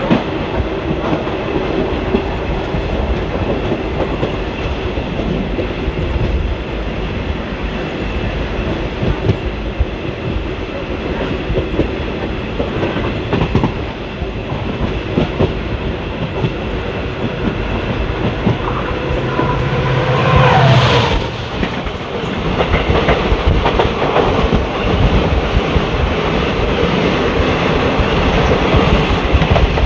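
Indian Railways ICF passenger coach running at speed, heard from inside: a steady rumble with wheels clicking over rail joints. A louder stretch with a brief whine comes about twenty seconds in.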